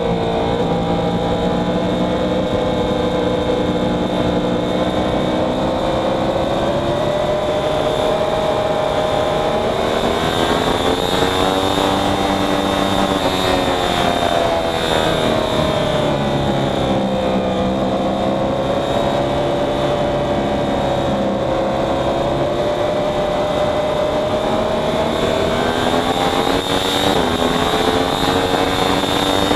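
Racing motorcycle engine running hard at high revs, its pitch swelling and easing in long sweeps several times, over steady wind rush.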